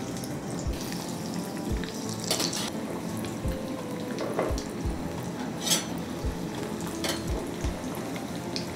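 Steady sizzling hiss of hot oil for deep frying, under soft background music with held notes and a low beat about once a second.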